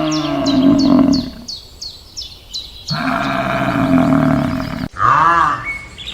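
Animal calls: long, low calls repeated with a pause between, over small birds chirping rapidly, then, after a sudden change near the end, a different animal's short, quickly repeated calls.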